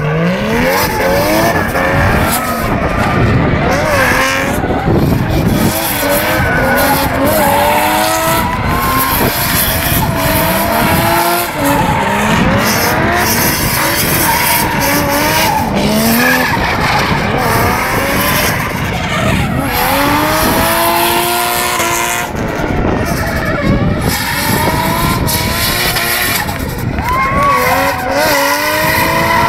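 Drift cars doing burnouts and skids: engines revving up and down at high revs while the rear tyres spin, skid and squeal without a break.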